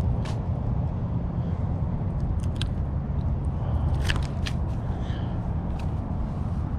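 Small clicks and scrapes from unhooking a freshly caught fish by hand, the hook lodged near its eye, over a steady low rumble of wind on the microphone.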